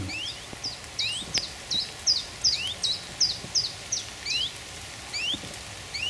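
Common chiffchaff singing its chiff-chaff song: a run of short, high notes at about three a second. A lower, rising call sounds every second or so beneath the song.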